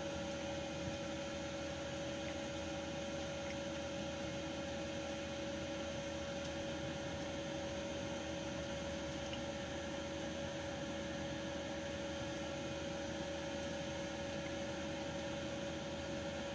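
Steady machine hum with an even hiss and a constant mid-pitched tone.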